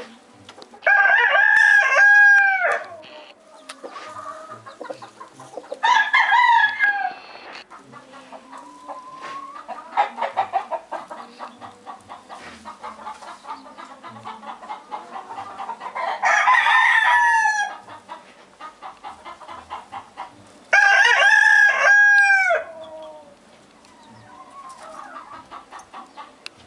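Rooster crowing four times, each crow lasting about one and a half to two seconds and ending in a falling note, with hens clucking more quietly between the crows.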